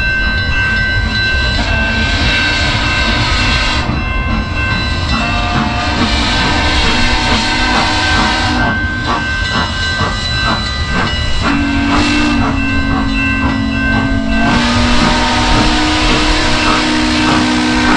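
Steam locomotive sound for a Lionel Southern Pacific Daylight model: steady chuffing and hiss with a run of even exhaust beats in the middle, and a low two-note steam chime whistle held from about two-thirds of the way in.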